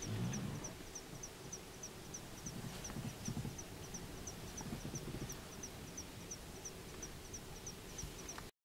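An insect chirping steadily, a short high-pitched chirp repeated evenly about three or four times a second, with faint low thumps beneath.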